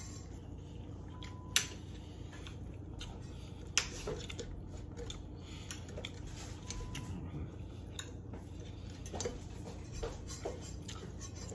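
Cutlery clinking against plates during a meal: two sharp clinks about a second and a half and about four seconds in, with lighter scattered clicks over a steady low hum.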